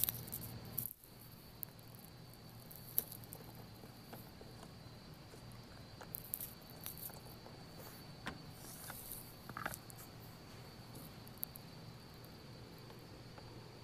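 Scattered light clicks and knocks as hands unscrew an engine's oil filler cap and set a plastic funnel in the filler hole, over a steady high-pitched tone in the background.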